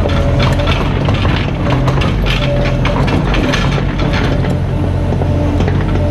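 Mini excavator at work: its diesel engine runs steadily under a dense, irregular metallic clatter and knocking.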